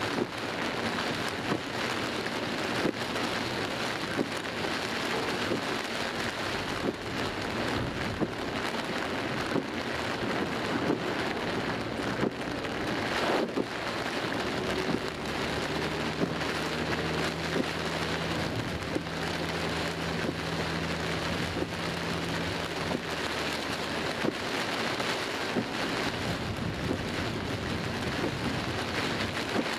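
Torrential rain drumming on a car's roof and windscreen, heard from inside the cabin, a dense steady wash with many sharp drop impacts. A low steady hum joins about fifteen seconds in and fades out several seconds later.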